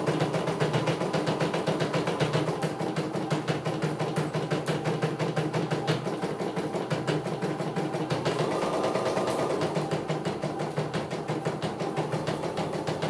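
CNY E900 computerised embroidery machine stitching a design, its needle running in a rapid, even rhythm of strokes. A faint higher whine joins in about eight seconds in.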